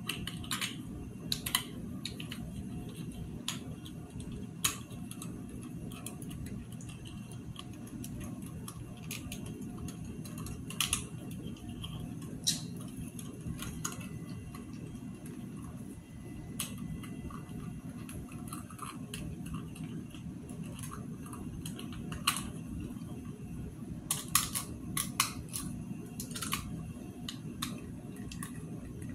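Scattered light clicks and taps of doll pieces being handled and fitted together, with a cluster of quick clicks near the end, over a steady low room hum.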